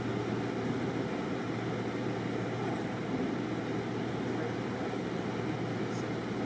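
Steady drone of idling vehicles and street noise, with no single sound standing out.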